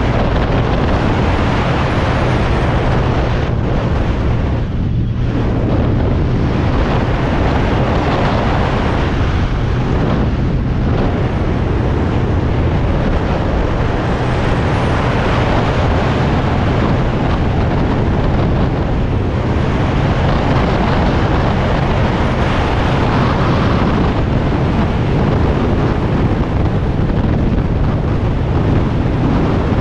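Kawasaki Z1000SX inline-four running at a steady cruise, its even engine note under loud wind noise buffeting the microphone at motorway speed. The pitch holds level, with no gear changes or acceleration.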